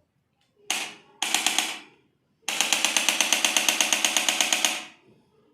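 Handheld electric percussion device used on the body, firing rapid mechanical taps at about nine a second with a motor hum under them. It runs in three bursts: a short one just under a second in, another of about two-thirds of a second, then a longer run of about two and a half seconds.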